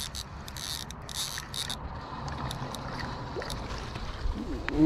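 Spinning reel being cranked to bring in a hooked bass, with water splashing as the fish thrashes at the surface. A rapid, choppy high-pitched whirr runs through the first two seconds. A short voice sound near the end is the loudest moment.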